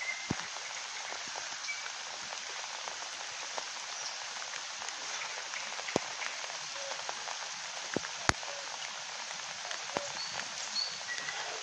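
Steady rain falling on wet ground, leaves and a puddle, making a continuous even patter. A few sharp clicks or knocks stand out, the loudest about 8 seconds in.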